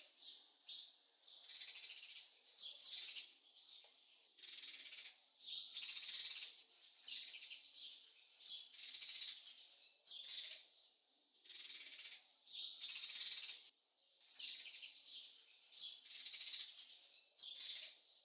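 Birds chirping in short high bursts that come about once a second, from a bird-chirping sound effect.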